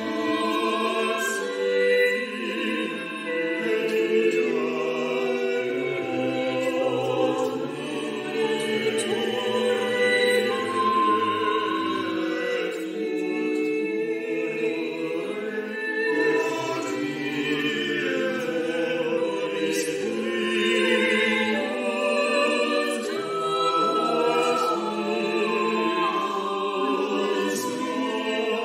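Choir singing in several-part harmony.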